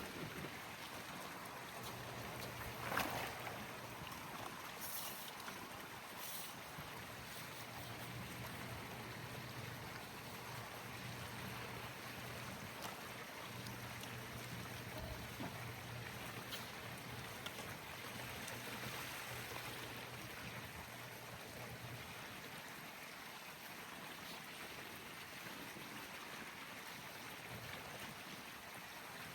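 Steady rush of circulating pool water, with a low hum that stops about 22 seconds in and a brief louder knock about three seconds in.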